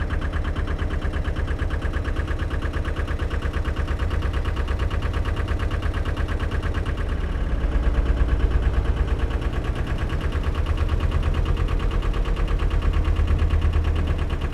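Narrowboat diesel engine running under way with a steady fast beat, swelling louder about halfway through as the boat is driven out of the lock.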